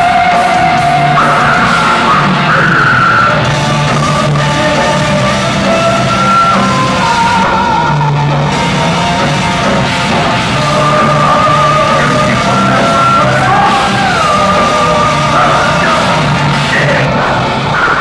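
Heavy metal band playing live, heard from the crowd in a large hall: distorted electric guitars and bass with a sustained melodic lead line over the full band.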